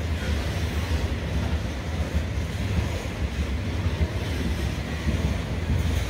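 Freight train of hopper wagons rolling past, a steady low rumble of wheels on rail, with wind buffeting the microphone.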